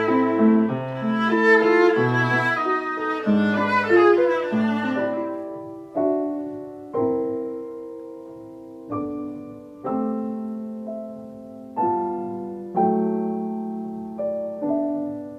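A violin played with piano accompaniment for about the first five seconds. The music then changes to a Yamaha grand piano played solo: slow chords, each struck and left to ring and fade, about one a second.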